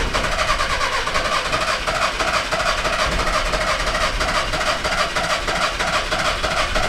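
VW Caddy van's starter motor cranking the engine in an even rhythm without it catching, cutting off abruptly near the end: the engine turns over but will not start.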